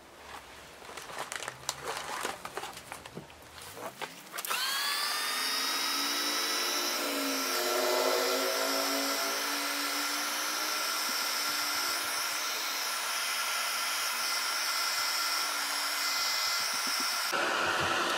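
Craft heat tool switched on about four seconds in, its fan whining up to speed and then blowing steadily, with a wavering lower note for a few seconds in the middle; it cuts off shortly before the end. Light handling clicks come before it starts.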